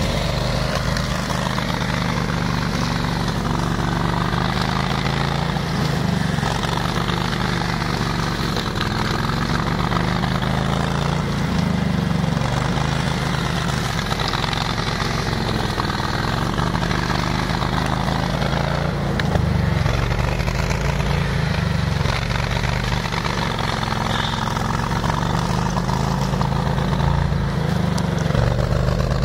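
18 hp engine of a ride-on flail grass mower running steadily, its note dipping slightly and recovering every few seconds.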